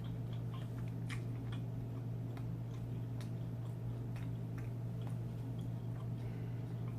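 Steady low hum with faint, irregular light clicks and taps scattered through it, a few every second or so.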